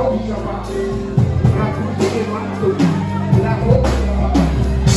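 Live worship music: a band with drum kit and held bass notes, with voices singing over it.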